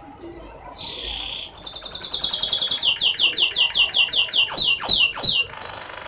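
Domestic canary singing a varied song: a short buzzy note, a rapid high trill, a run of quick falling notes at about five a second, then three longer, louder downward sweeps and another fast trill at the end.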